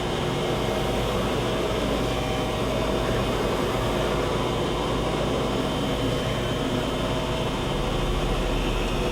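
Okamoto ACC-24-60EX column-type surface grinder running with no workpiece: the grinding wheel spins and the hydraulic table reciprocates back and forth at high speed, giving a steady mechanical hum with a few faint steady tones.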